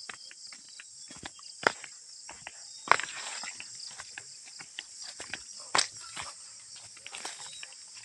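A steady, high-pitched insect chorus, with irregular footsteps and rustles from someone walking along a grassy dirt path.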